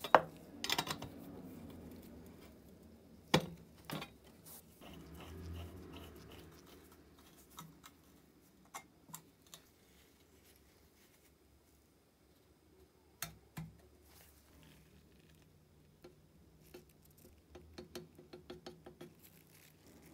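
Small handling sounds on a workbench: a ring spanner clicks and knocks against a brass fitting on a cast-iron stove, followed by sparse light taps and a quick run of faint ticks near the end.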